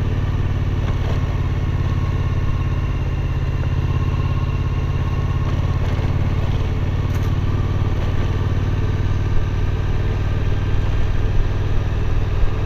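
Suzuki V-Strom 1050's V-twin engine running steadily as the motorcycle rides over a rocky dirt road, with a few short knocks near the end.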